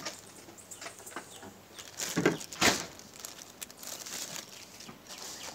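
A plastic bag rustles while a metal tablespoon scrapes and taps against a stainless steel bowl. There is one louder knock about two and a half seconds in.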